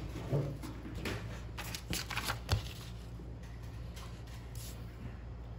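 A sheet of paper rustling and crinkling as it is handled and laid down on a board, with a few light taps, over the first couple of seconds; after that only a faint steady hum.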